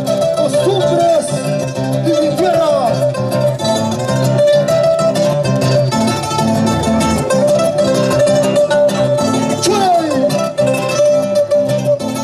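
Live Andean folk dance music played on plucked string instruments, with a held tone and short sliding notes over the top.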